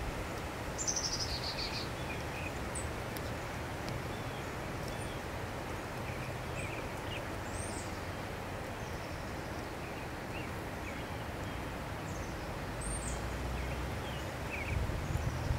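Outdoor ambience: a steady low rumble with small birds chirping now and then, and a short buzzy trill about a second in.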